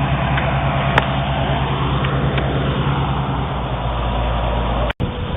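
Oliver 770 tractor engine running at a steady speed, with a single sharp click about a second in. The sound drops out for an instant near the end.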